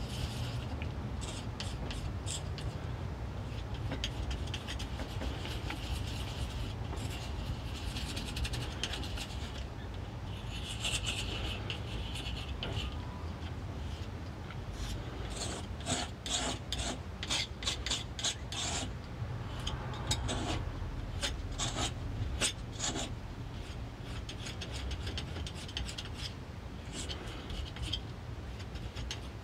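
Metal palette knife scraping and rubbing Prussian blue pigment into linseed oil on a marble slab, in repeated strokes that come thick and fast about halfway through. The pigment particles are not quite fine enough, so the paste is still gritty.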